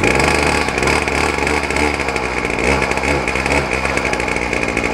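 Small two-stroke string trimmer engine running on a spring start-up, its speed rising and falling a few times as the throttle is worked.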